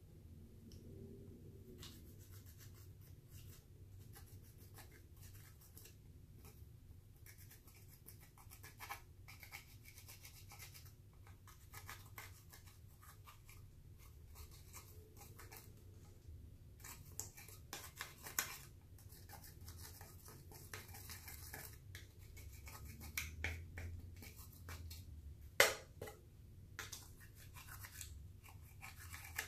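Clear slime being mixed with eyeshadow, making a dense run of small sticky clicks and crackles, with one sharper click about three-quarters of the way through.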